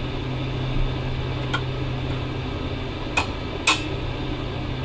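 A steady low machine hum with three short, sharp clicks; the two loudest come close together about three and a half seconds in.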